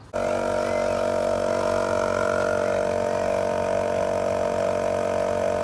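Portable air compressor switching on abruptly and running steadily, with a constant motor hum, inflating a freshly plugged car tire.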